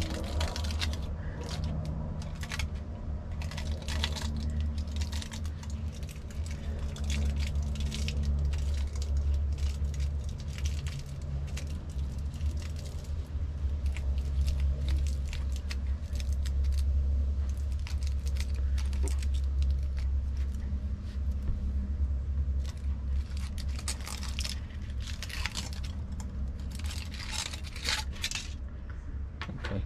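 Aluminium foil crinkling and tearing in many short crackles as it is wrapped and pressed around a small wooden twig lure, over a steady low hum.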